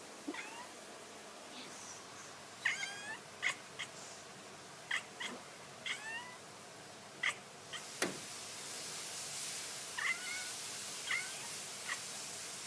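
A cat making about a dozen short, high chirps, spaced out, several with a quick bend in pitch: the chirping a cat does while watching birds. A sharp click about eight seconds in, followed by a steady hiss.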